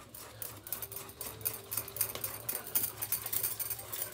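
Metal spoon beating thick wheat-flour and jaggery batter in a steel bowl, a rapid run of clicks as the spoon strikes and scrapes the bowl's side. The batter is being stirred with added water to loosen it and dissolve the jaggery.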